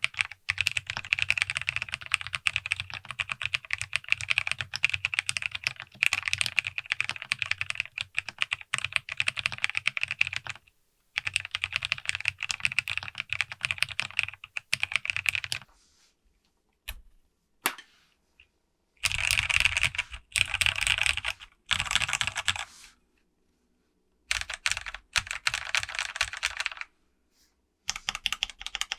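Typing on a custom mechanical keyboard (FancyAlice66 with lubed Kailh Clione Limacina tactile switches on a POM plate), a thocky keystroke sound. Fast continuous runs of keystrokes for the first half, then shorter bursts separated by pauses with a few lone keypresses.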